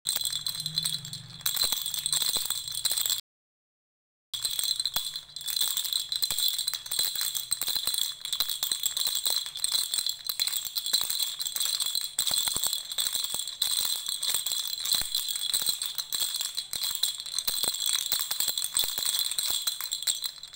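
Baby rattle shaken without pause: a dense run of small clicks over a bright ringing tone. It cuts out completely for about a second, roughly three seconds in, then carries on.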